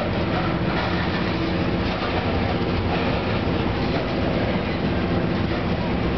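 Covered hopper cars of a freight train rolling past close by: a steady noise of steel wheels running on the rails.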